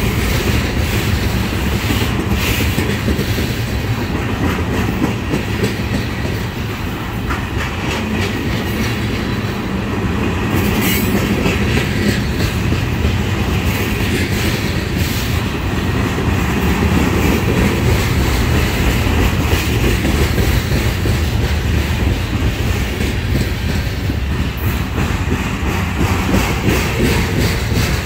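Freight train of flatcars carrying trash containers rolling past: a steady rumble of steel wheels on the rails with repeated clicking over rail joints.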